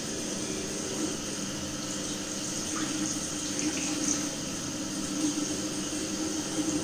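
Bathroom tap running steadily into a sink, the stream splashing over an electric rotary shaver's opened head as it is rinsed out.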